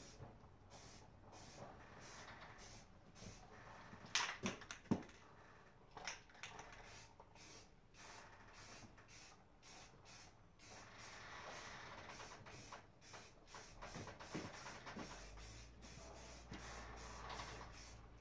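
Aerosol can of high-heat spray paint hissing faintly in many short, quickly repeated bursts, with a steadier stretch of spraying in the second half. Two louder knocks come about four and five seconds in.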